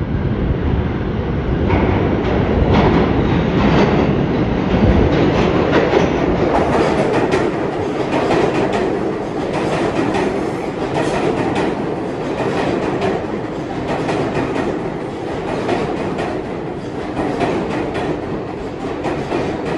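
New York City Subway R188 train coming in from the tunnel and running past alongside the platform, a loud rumble with a rapid string of clicks from the wheels over the rail joints as the cars go by.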